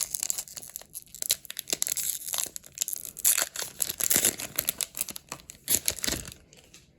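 A foil Pokémon card booster pack wrapper being torn open and crinkled in the hands, a run of irregular crackles and rips that dies away near the end.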